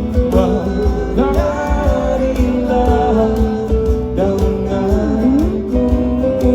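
Live band music at a concert: guitar and a sung melody over a steady beat, played through the PA.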